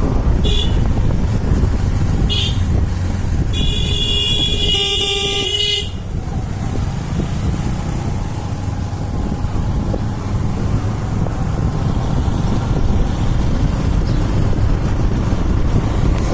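Steady low road rumble with a vehicle horn tooting: two short toots, then a longer blast of about two seconds between four and six seconds in.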